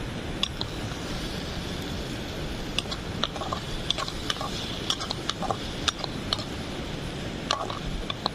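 A spoon stirring the curry in a cooking pot, clinking and scraping against the pot in irregular taps over a steady hiss.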